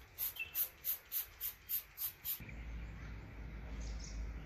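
Hand trigger spray bottle misting plants in quick squirts, about three a second, stopping about two and a half seconds in. After that only a steady low outdoor rumble remains.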